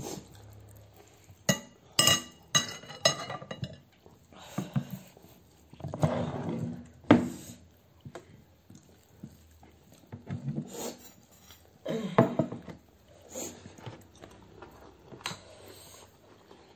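Close-up eating sounds of rice and chicken gravy eaten by hand: chewing and mouth noises in short bursts. In the first few seconds a metal serving spoon clinks against the glass dishes about four times, with a short ring.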